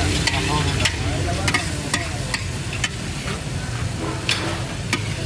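Mutton liver sizzling and frying in masala on a large tawa while a metal spatula stirs and scrapes it, with repeated sharp clinks of the spatula striking the pan.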